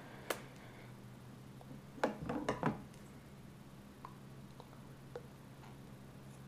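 Handling noise of small objects: a single click, then a brief clatter of clicks and knocks about two seconds in as a pair of scissors is picked up, then a few faint ticks. A steady low hum runs underneath.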